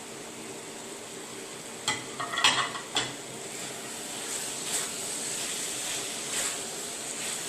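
A pan of beef balls in simmering red sauce sizzling steadily while vegetables are stirred in. A utensil clatters and knocks against the pan about two to three seconds in, followed by softer stirring.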